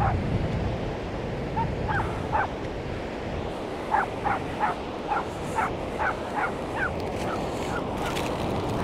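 Seagull calling: a few short calls, then a run of about nine rapid calls about four seconds in, fading near the end. Behind it, steady rumbling wind noise on the microphone and surf.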